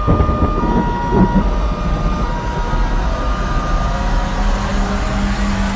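Background music: a deep, steady rumbling drone under long held notes that step between two pitches every second or so.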